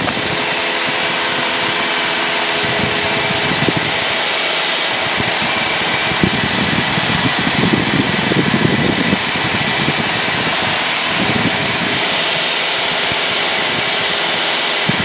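Cessna 172N's four-cylinder Lycoming engine and propeller in flight, a steady drone and hiss picked up through the headset intercom feed, with faint steady engine tones in it. Irregular low rumbles come and go, heaviest between about six and nine seconds in.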